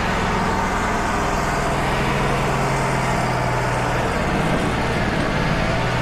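Wood-Mizer LT35 portable bandsaw mill running steadily as the saw head makes an edging pass along a cherry board. Its engine note drops a little about a second and a half in, then holds.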